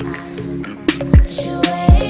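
Background music with a slow beat: deep bass notes sliding down in pitch, and a sharp snare hit.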